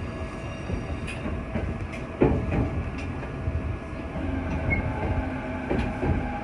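Izukyu 3000 series electric train heard from inside the car as it pulls into a station and comes to a stop: a steady low rumble with a few knocks early on. A steady low hum sets in about four seconds in.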